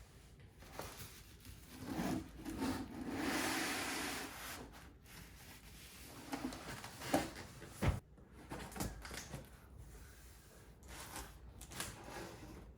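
Packaging being handled while a PC case is unboxed: rubbing and sliding of cardboard and wrapping, with a longer sliding rustle a few seconds in, scattered knocks and one sharp thump about eight seconds in.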